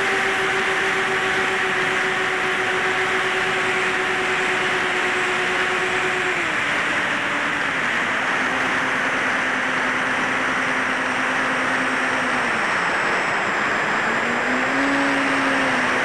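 Steady rush of air over an electric RC plane in flight, heard from its onboard camera, with the hum of the HEEWING T2 Cruza VTOL's electric motor and propeller. The hum drops in pitch about six seconds in, dips again near the end, then rises.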